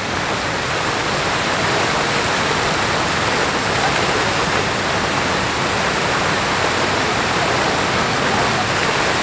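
Large dancing water fountain's jets splashing down into its pool: a steady rush of falling water.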